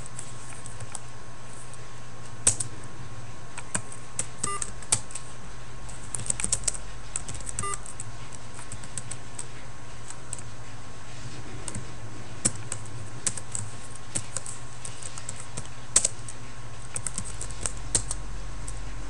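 Computer keyboard typing: scattered keystrokes in short irregular runs, over a steady electrical hum with a faint constant whine.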